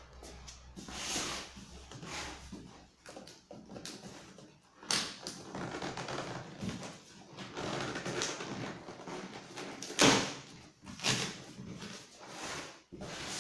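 Cardboard box and packaging being handled and opened: irregular rustling with several sharp knocks, the loudest about ten seconds in.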